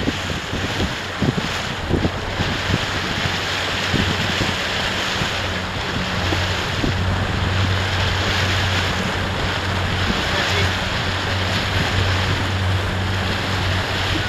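Wind buffeting the microphone over rushing water on a boat, with a steady low drone underneath and a few short knocks in the first few seconds.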